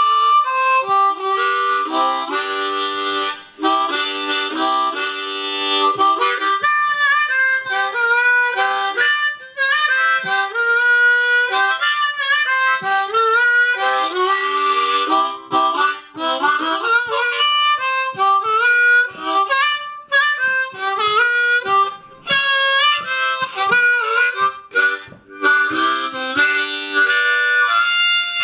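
Harmonica (blues harp) played cupped in both hands: a melody of chords and single held notes with some sliding pitches and a few brief pauses for breath.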